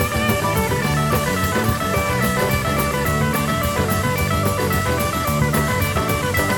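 Background rock music with electric guitar, bass and a drum kit keeping a steady beat.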